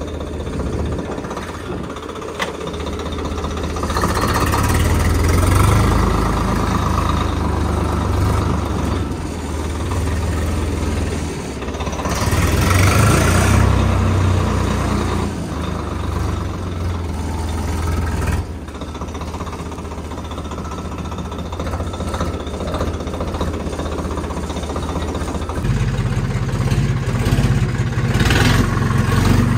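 Tractor diesel engine running under way, heard from the driver's seat, with the revs swelling about four seconds in and again around twelve seconds. Near the end the sound switches abruptly to a second tractor's engine with a deeper, stronger note.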